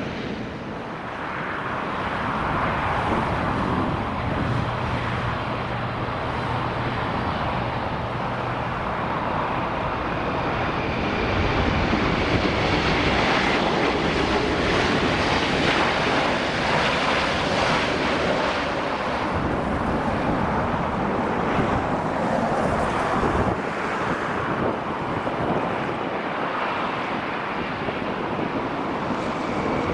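Jet airliner engines running, a steady rushing noise that gets somewhat louder about halfway through, with wind on the microphone.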